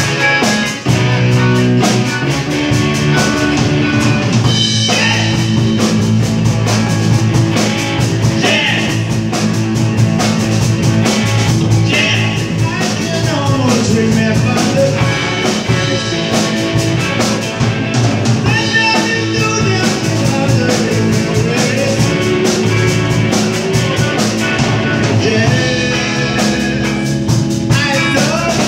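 Live rock band playing loudly and steadily: electric guitars over a drum kit.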